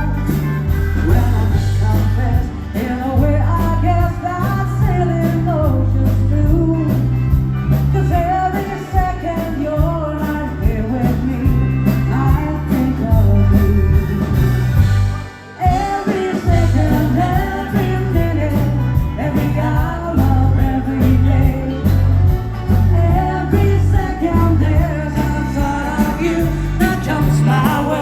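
Dance band playing a rock'n'roll-style song with a sung melody over guitar, bass and a steady drum beat; the band stops for a brief break about halfway through, then comes back in.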